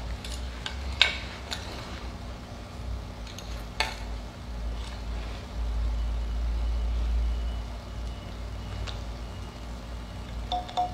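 Handling sounds of a bamboo mouth harp being picked up and readied: a few sharp clicks and taps over a low rumble. Near the end the mouth harp starts to play, a steady twanging tone with quick rhythmic plucks.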